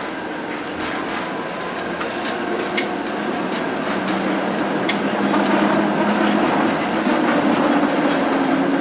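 Interior running sound of a PCC streetcar under way: a steady rumble and rattle of the car body, with a few sharp clicks from the wheels on the track. From about four seconds in, a traction-motor hum comes up and rises in pitch as the car gets louder and picks up speed.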